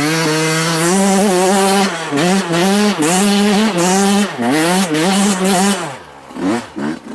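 Dirt bike engine revving hard, its pitch climbing and dipping again and again as the throttle is worked, then dropping off about six seconds in before it picks up again.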